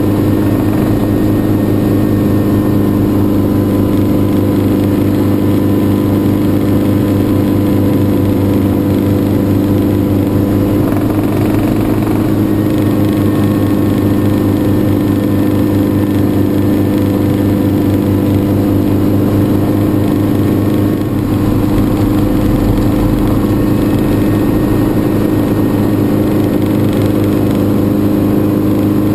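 Schweizer 300 helicopter in flight, heard from inside the cockpit: its piston engine and rotor make a loud, even drone that holds steady throughout.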